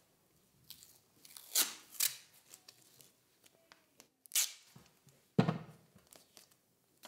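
Adhesive tape being pulled off the roll and torn: about four loud, short rips with quieter rustling between.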